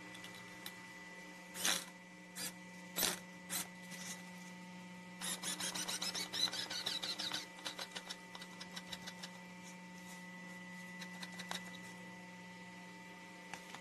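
Homemade mini electric screwdriver, a small 12 V gear motor with a gearbox, driving a screw into a wooden block: a few sharp clicks, then about two seconds of rapid clicking and grinding that trails off into scattered clicks. A steady low hum lies underneath.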